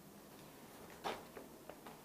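A few light knocks and rustles of a paperback textbook being picked up and handled, the first and loudest about a second in.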